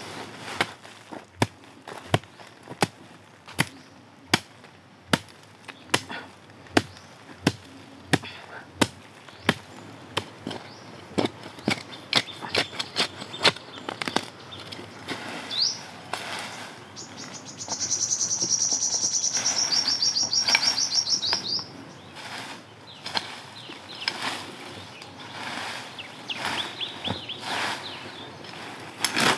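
A large knife chopping at the base of a sapling in sharp, regular strokes, about one and a half a second. Midway a bird gives a loud, fast, high trill lasting several seconds, and later a few softer chirps and strikes.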